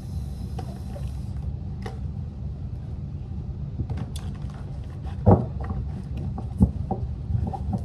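Tarot cards and a card deck being handled: scattered light taps and clicks, the sharpest about five seconds in, over a steady low rumble.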